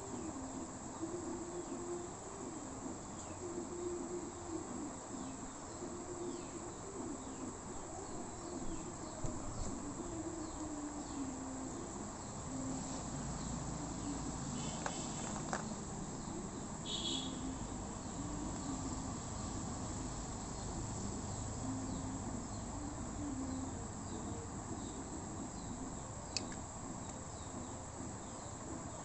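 Crickets chirring steadily, with a few short clicks around the middle and one near the end.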